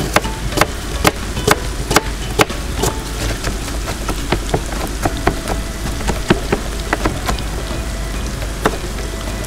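A kitchen knife chopping red onion on a cutting board, about two chops a second for the first two and a half seconds, then stopping. Underneath, chicken tikka frying in a pan gives a steady sizzle with scattered crackles.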